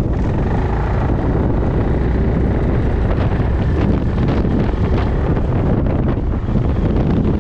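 Heavy wind buffeting the microphone on a moving Yamaha Majesty 400 scooter, with the scooter's engine and road noise underneath, steady throughout.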